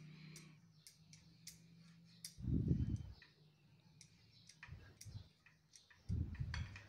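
A spoon stirring a chickpea salad in a glass bowl: scattered light clicks and taps against the glass, with two dull low thumps, about two and a half seconds in and near the end.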